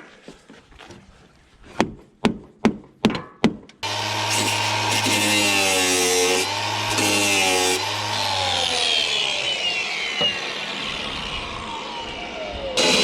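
About five sharp strokes half a second apart, then a power tool running steadily, its pitch wavering and then slowly falling.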